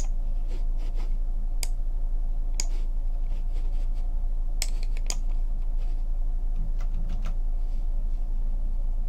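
Computer keyboard and mouse clicks, about eight sharp, irregularly spaced taps, over a steady low hum.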